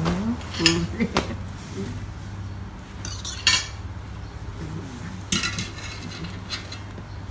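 Forks and spoons clinking against plates and bowls as people start eating, a few scattered clinks over a steady low hum.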